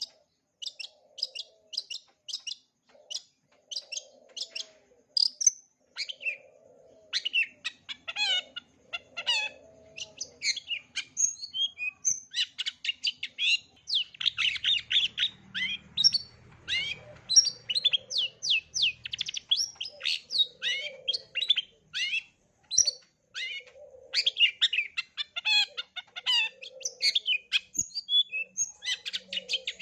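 Long-tailed shrike singing a fast, unbroken run of sharp high chirps and quick trills, its song packed with mimicked calls, with softer low warbled notes between them.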